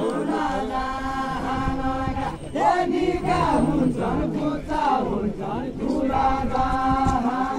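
Voices singing a Deuda folk song unaccompanied, with long held notes near the start and again near the end and a wavering, gliding phrase in between, over a murmuring crowd.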